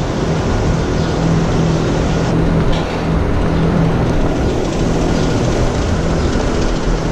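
Steady machinery noise with a constant low hum.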